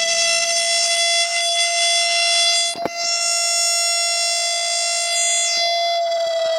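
A siren sounding one long, steady wail at a held pitch that begins to fall near the end, with a brief click about three seconds in.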